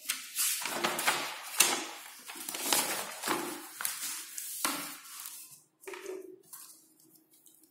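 Sheets of paper rustling and crinkling as they are handled on a clipboard: a run of irregular, crisp rustles over roughly the first five seconds.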